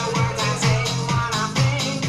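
Music with a steady dance beat.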